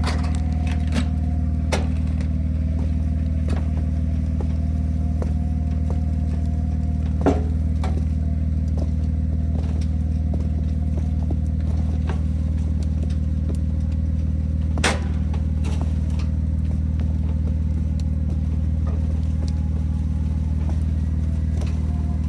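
Vehicle engine idling steadily, with two sharp clicks about a third and two thirds of the way through.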